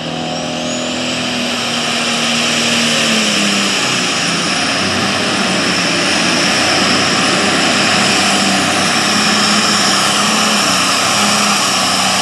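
John Deere heavy super stock pulling tractor's turbocharged diesel engine running flat out as it drags a weight-transfer sled down the track. It gets loud suddenly at the launch, a high whine climbs through the first second, and then it holds a steady, loud full-throttle note.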